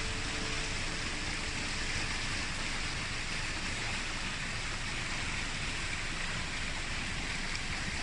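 Steady rush of a clear, shallow mountain stream flowing fast over pebbles and stones.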